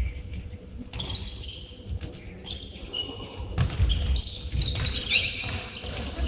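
Futsal match play in a sports hall: the ball is kicked and thuds on the hard court floor several times, loudest in the second half, with short high squeaks of players' shoes on the floor.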